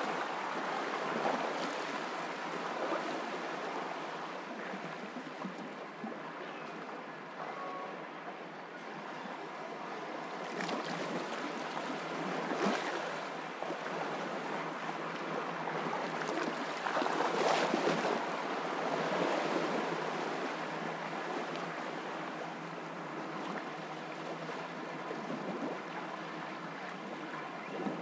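Waves washing on a rocky shore: a steady rushing noise that swells a little a few times, loudest around halfway and again about two-thirds of the way through.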